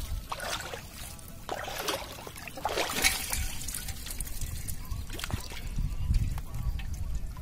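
Water trickling and splashing in uneven spurts as a wet bamboo fish trap is tipped and shaken over a metal pot, small fish and water dropping into it.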